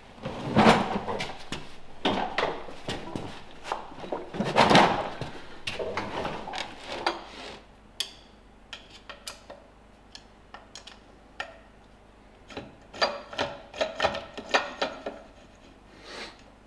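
Loose steel bolts and screws clattering and clinking as a hand rummages through a sorting bin. After about seven seconds this gives way to sparser small metallic clicks and taps as screws are set into a machined aluminium block and turned with a hex key, with a quick run of clicks near the end.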